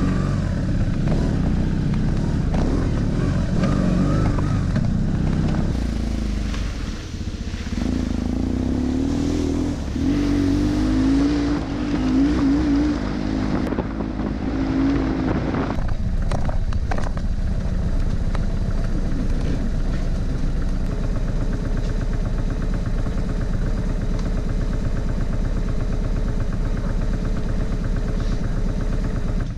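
Big twin-cylinder adventure motorcycle running on a dirt trail, its engine note rising and falling with the throttle, with a few knocks about halfway through.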